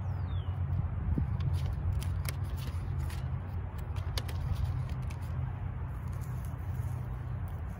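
A paper seed packet of Seminole pumpkin seeds handled and shaken into a hand: light rustling and scattered small clicks over a steady low rumble, with a short falling chirp at the start.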